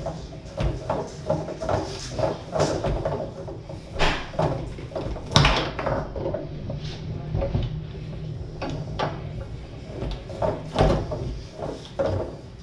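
Tornado foosball table in play: quick, irregular knocks and clacks of the ball hitting the players and the table walls and of the rods being slammed, with one sharp, louder hit about five seconds in.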